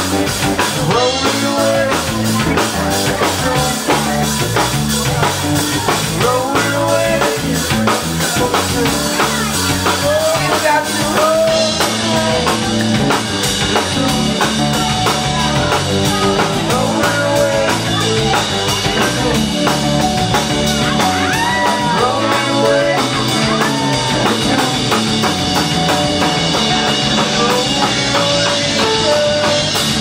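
Live rock band playing, with a drum kit keeping the beat under a wavering melody line; the sound grows brighter and fuller about twelve seconds in.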